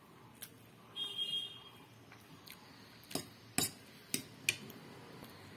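Metal fork scraping and clicking against a plate of noodles: a brief high squeal about a second in, then several sharp clicks in quick succession a little past halfway.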